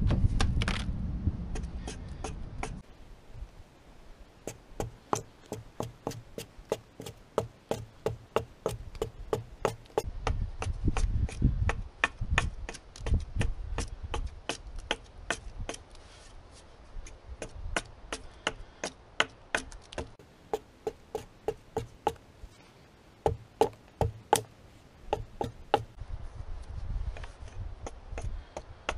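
A hatchet chopping repeatedly down the side of a green aspen stave, a steady series of sharp wooden chops about two to three a second with a few brief pauses, as mass is hewn off to flatten the bottom of a throw stick.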